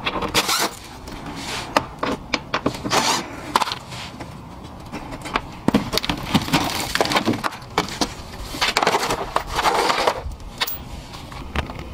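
A short burst from a cordless impact driver backing out a splash-shield screw, then a run of clicks, knocks and scraping as the plastic engine undertray is worked loose and pulled down by hand.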